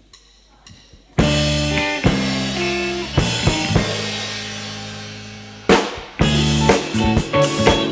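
Live rock band of drums, bass, guitars and keyboards after a short pause: about a second in, the whole band hits a loud chord that rings and slowly fades under a few scattered drum strokes. Near the end, a big hit leads into the band playing on with a steady drum beat.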